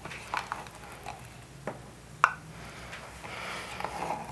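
Spoon scooping thick Greek yogurt from its plastic tub into a measuring cup. There are a few light clicks and taps of utensil on container, the sharpest a little past the middle, then a soft scraping and squishing near the end.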